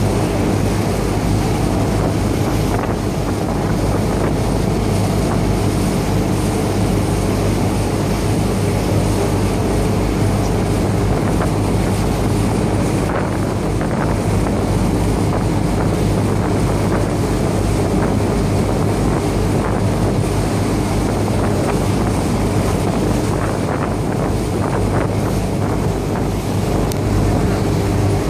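A boat's engine drones steadily, heard from on board while under way, with wind blowing on the microphone and water rushing past.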